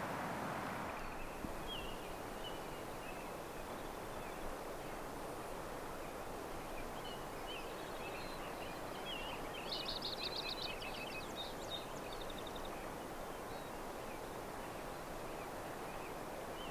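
Small songbirds chirping on and off over a steady outdoor background hiss, with a quick high trill about ten seconds in.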